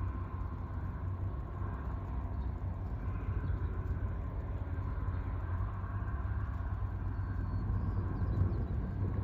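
Steady low engine rumble with a faint higher hum over it, running evenly without change.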